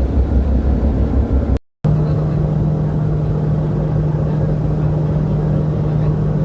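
Steady, loud engine drone with a deep rumble; about a second and a half in it cuts out abruptly for a moment and resumes as a steadier hum at a somewhat higher pitch.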